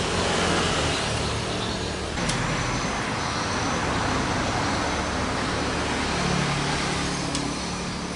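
Motor vehicle running close by: steady engine and road noise, with a low engine hum that changes pitch and swells about six seconds in.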